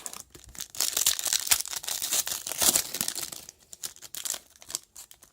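A foil trading-card pack being torn open, its wrapper crinkling, dense from about half a second in to about three and a half seconds, then thinning to scattered light crackles.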